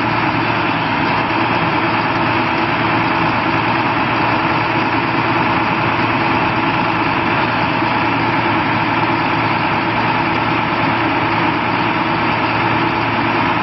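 The 7.6-litre diesel engine of a 2015 International 4300 service truck running steadily.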